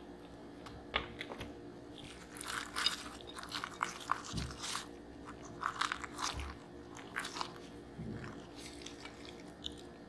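Crispy battered fried chicken drumsticks being dipped and turned in thick, sticky hot sauce in a glass bowl by gloved hands: wet crackling and squelching in two long bursts, with a few dull knocks.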